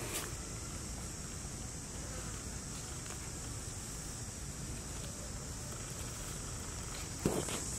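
Insects buzzing in a steady, high drone, with a short rustle right at the start and a louder one near the end.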